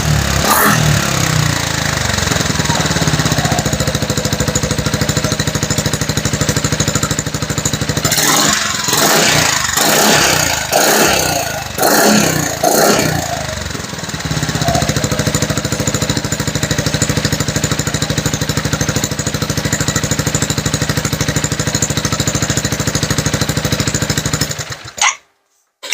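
Motorbike engine idling through a newly fitted Termignoni exhaust. In the middle it gives a series of quick throttle blips, then settles back to a steady idle before the sound cuts off suddenly near the end.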